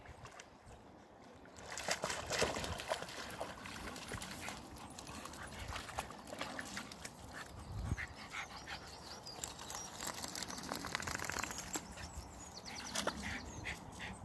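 Dogs wading in the shallows of a pond, water splashing and sloshing around their legs in quick irregular splashes that start about two seconds in.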